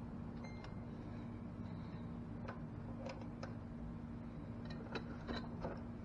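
Light metallic clicks and ticks of hand tools tightening the valve adjuster and locknut on a GY6 150cc scooter's cylinder head, in small scattered groups, over a steady low hum.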